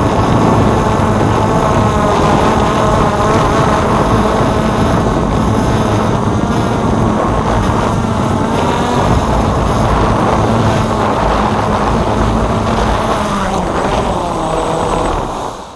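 Motors and propellers of a DJI F550 hexacopter whirring steadily in flight, the pitch wavering slightly with throttle, over rough wind-like noise. The sound fades out quickly near the end.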